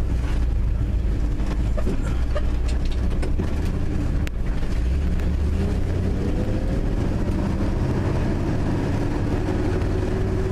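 1974 Ford F250 pickup's engine running steadily as the truck drives at town speed, with tyre and road noise; it is running well after its cold start. A faint tone rises gently about halfway through.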